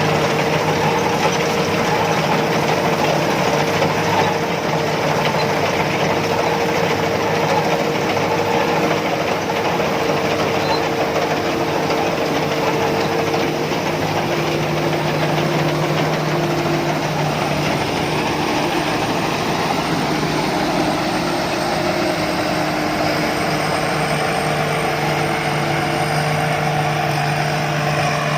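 Combine harvester engine running steadily, a continuous loud mechanical drone with a low hum.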